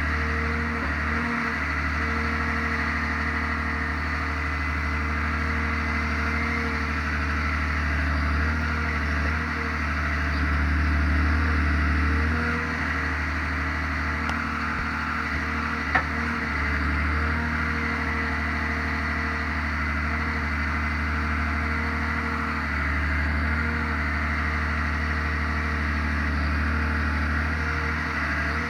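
Forestry forwarder's diesel engine running steadily while its hydraulic log crane works, the engine note swelling for a couple of seconds around ten seconds in. A single sharp knock sounds about sixteen seconds in.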